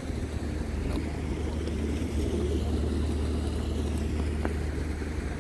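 Steady low hum of an engine running at idle, unchanging throughout.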